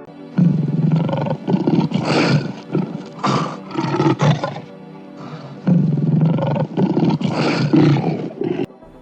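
A big cat roaring in two long rough bouts, the second starting about halfway through.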